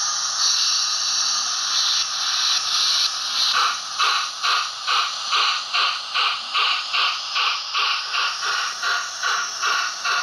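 Hornby DCC sound decoder in an OO gauge A4 model steam locomotive, playing through the model's small onboard speaker: a steady steam hiss, then exhaust chuffs that begin about two seconds in and settle into an even beat of about two and a half a second as the locomotive pulls away slowly.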